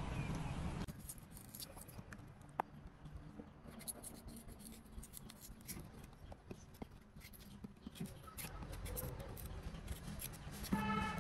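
A kitchen knife paring the skin and stem end off a green guava: many small, quiet scraping and cutting ticks. Near the end comes a brief pitched, voice-like sound. A steady low outdoor rumble cuts off suddenly about a second in.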